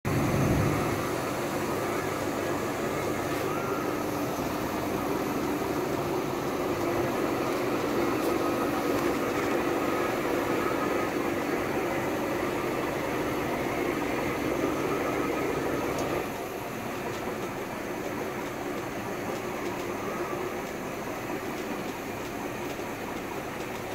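Boat's inboard engine idling steadily while still warming up, heard through the open engine hatch. The sound drops somewhat about two-thirds of the way in.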